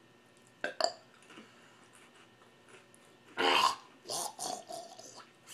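A couple of short sharp sounds under a second in, then a person's loud burp about three and a half seconds in, followed by about a second of further throaty voice sound.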